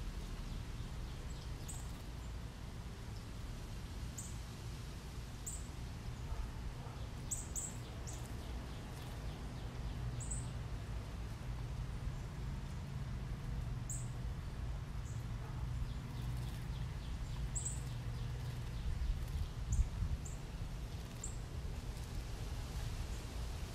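Juvenile northern cardinals giving short, sharp, high chip calls, one every second or two, over a steady low rumble, with faint splashing from birds bathing in shallow water.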